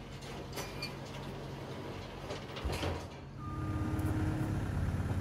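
Caterpillar compact track loader's diesel engine running, with a few sharp metal clanks and scrapes in the first three seconds. About three and a half seconds in, the engine grows louder and a steady high tone comes in.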